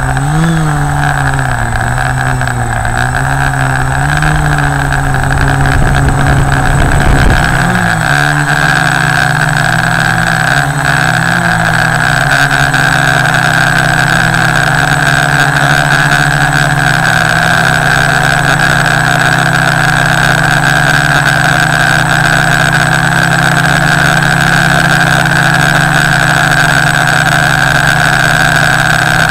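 Tarot Y550 hexacopter's six electric motors and propellers running in flight, picked up by the onboard camera. The pitch wavers up and down for the first fifteen seconds or so, then holds steady.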